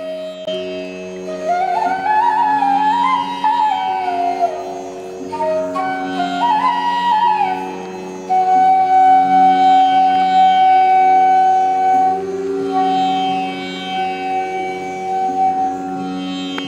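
Instrumental background music in an Indian classical style: a gliding melody over a steady drone, settling into one long held note about halfway through.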